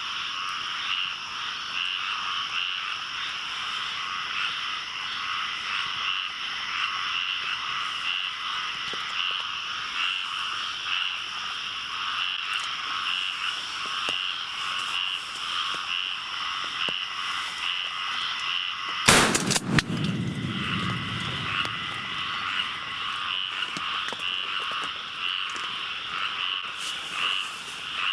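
Dense chorus of frogs calling steadily. About 19 seconds in, a single shotgun blast, a slug being fired, cracks out loudly and rumbles away over a couple of seconds while the frogs keep calling.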